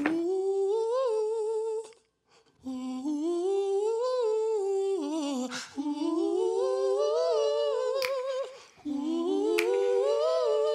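A wordless humming voice carries a melody in three long phrases, each rising and then falling, with short breaks between them. There are a few faint clicks.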